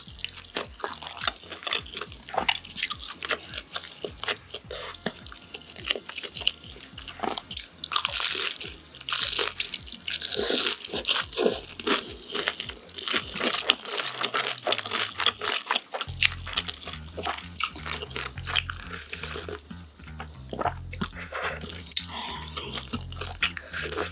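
Close-miked eating of crispy fried tangsuyuk (sweet and sour pork in a crisp, chewy glutinous-rice batter): dense, sharp crunching as it is bitten and chewed, loudest about eight to ten seconds in.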